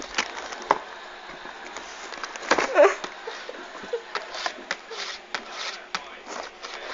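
Cardboard cereal box being scratched and batted by a cat: irregular scratching and tapping, with a louder scuffle about two and a half seconds in.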